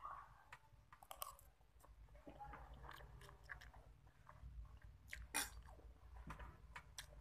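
Faint close-up chewing: soft wet mouth clicks and smacks of someone eating instant noodles with rice.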